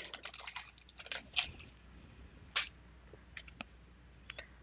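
Wax-paper wrapper of a 1991 Fleer basketball card pack crinkling and rustling as the cards are pulled out of it, for about the first second and a half. This is followed by a few soft, separate clicks as the stack of cards is handled.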